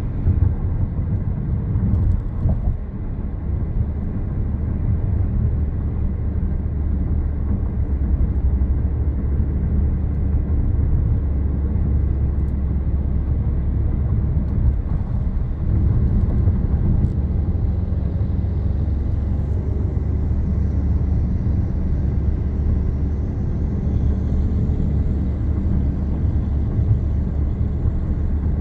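Car driving along a road: a steady low rumble of road and engine noise that barely changes.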